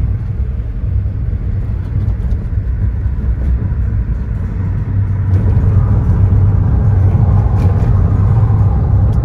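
Car interior noise while driving: a steady low engine and road rumble, growing louder about five seconds in as the car gets moving again and tyre noise rises.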